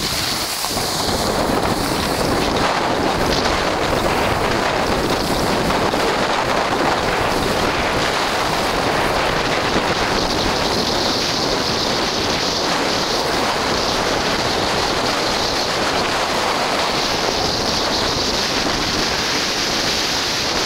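Steady rush of wind on the microphone, mixed with the hiss of a snowboard sliding over packed snow, as the rider descends a ski run.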